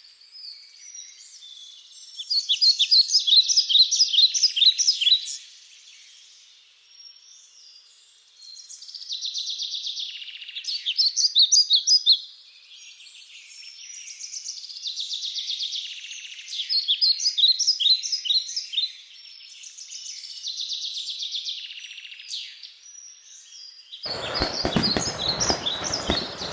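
Songbirds singing: repeated phrases of rapid, high chirping notes every few seconds, some loud and close. Near the end a burst of broad rushing noise sets in under the song.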